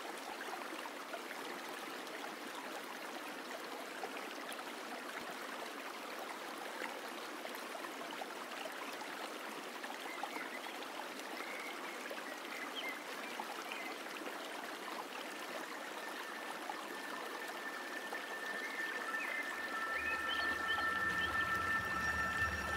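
Shallow river water running steadily over stones and boulders. Near the end a couple of steady tones and a low hum join in.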